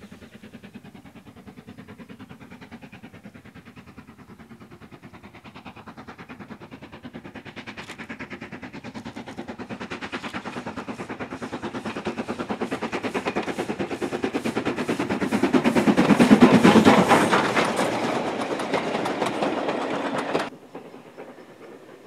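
Steam locomotive hauling a passenger train, its exhaust beating in a fast, even rhythm that grows steadily louder as it approaches and passes close, loudest about three-quarters of the way through. The sound cuts off abruptly near the end, leaving a much fainter sound.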